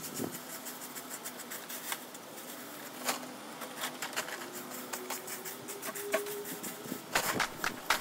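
Dry fallen leaves and twigs rustling and crackling in short, irregular bursts as they are raked up and pushed into a plastic pop-up garden bag. The crackling grows denser and louder near the end.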